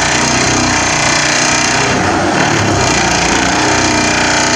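Vibratory pile-driving hammer running continuously as it drives a steel pile, a loud, steady, buzzing drone. The pile is reaching its final level.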